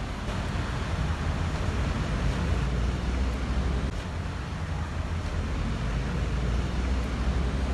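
Steady outdoor city background noise with a strong low rumble, as of distant traffic.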